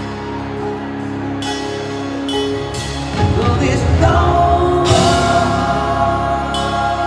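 Live country-rock band music, with acoustic guitar, getting louder about three seconds in. A man's lead vocal comes in about four seconds in.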